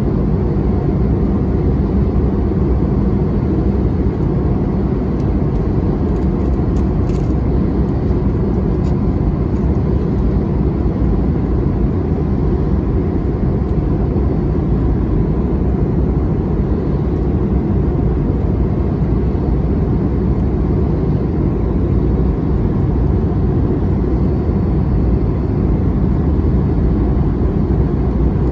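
Steady cabin roar of an Airbus A321-211 in descent: engine and airflow noise heavy in the low end, with a few faint ticks about seven seconds in.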